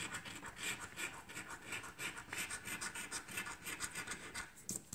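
The silver coating of a scratch-off lottery ticket being scratched away in a quick series of short, rasping scrapes.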